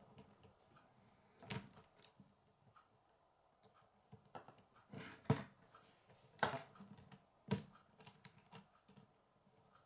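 K'nex plastic rods and connectors being handled and snapped together: a string of irregular sharp plastic clicks with light rattling between them.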